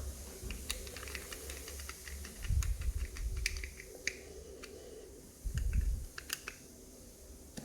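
Irregular light clicks and ticks from handling a garage door push-button switch and tightening its wire terminals, with two dull bumps along the way.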